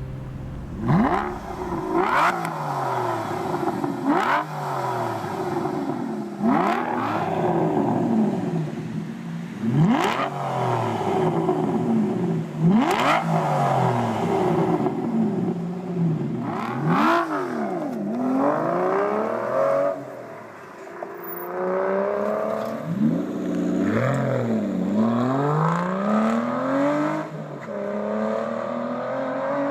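Aston Martin V12 Vantage's V12 engine revved through a QuickSilver stainless sports exhaust. It gives a string of quick throttle blips, each rising sharply and dying away, then a few longer, slower climbs in revs.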